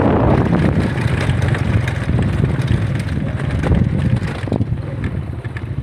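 Low rumbling drive noise of a vehicle moving along a rough dirt track, mixed with wind buffeting the phone's microphone; it eases off slightly near the end.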